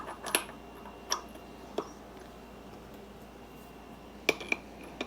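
A handful of short, sharp metal clicks and clinks, irregularly spaced, as a tool is fitted and worked on a bicycle freewheel before tightening it with an adjustable wrench.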